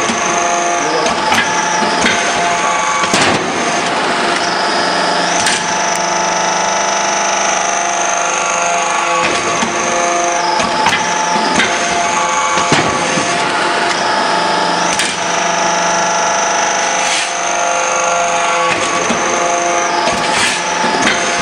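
Hydraulic metal-scrap briquetting press running: a steady machine hum with a high whine that drops and rises in pitch a few times, and scattered sharp clanks.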